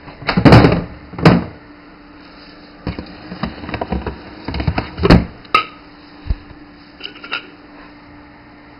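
A can dropping inside a mini Coca-Cola vending-machine fridge and landing in its plastic dispensing tray with two loud thunks, then a run of smaller knocks and clatters as it is handled in the tray. The machine's cooling fan hums steadily underneath.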